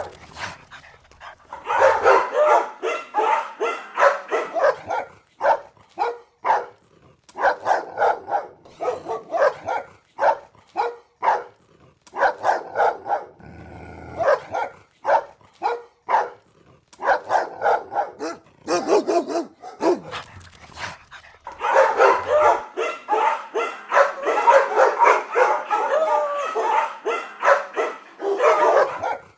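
Several dogs barking aggressively in quick, overlapping runs, densest about two seconds in and again through the last third.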